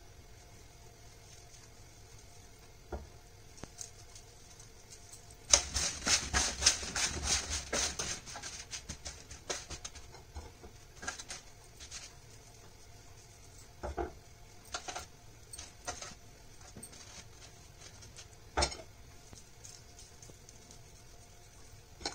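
Raw cauliflower florets being tossed by hand on a metal baking tray: a rapid patter of light knocks and clicks from about five to ten seconds in, then scattered single knocks.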